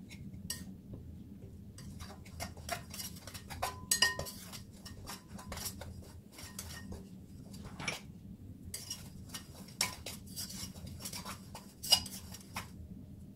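A table knife scraping and clicking against a ceramic mixing bowl as it cuts milk into flour to bring scone dough together, in irregular strokes. There is a sharper clink about four seconds in and another near the end.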